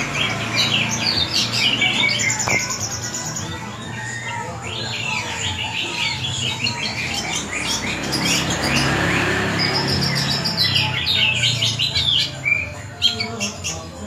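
Long-tailed shrike (cendet) singing a fast, varied song of rapid chirps and short high trills, a bird kept for its mimicking of many other birds' calls. The song dips briefly about four seconds in and again near the end.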